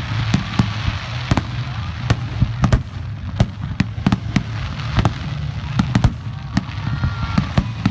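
Fireworks going off all around: many irregular sharp bangs and pops, several a second, over a steady low rumble.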